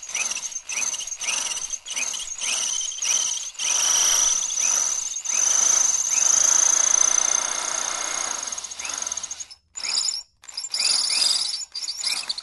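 Electric drill pulsed in short bursts on the trigger, its motor whining up at each start, then held running for about six seconds with a steady high whine before stopping. Near the end it is pulsed in short bursts again.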